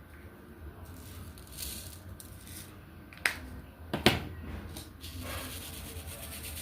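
Diamond painting at work: soft rustling of resin drills and the applicator pen, with two sharp clicks about three and four seconds in, over a steady low hum.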